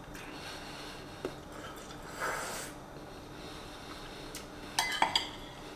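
Quiet eating sounds: a metal spoon clinking and scraping against a ceramic bowl of stew, with a few sharp clicks near the end and a short breathy noise about two seconds in.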